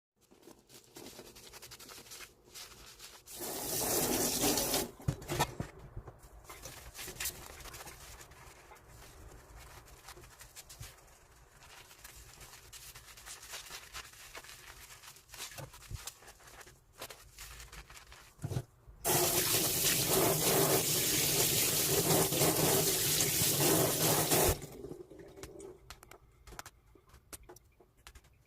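Dishes being washed at a kitchen sink. The tap runs briefly about three seconds in and again for about five seconds later on. Between these there is quieter scrubbing and handling, with the odd clink of dishware.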